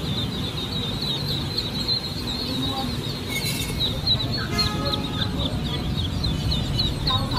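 A crowd of newly hatched ducklings peeping: a dense, unbroken stream of short, high calls over a low steady rumble.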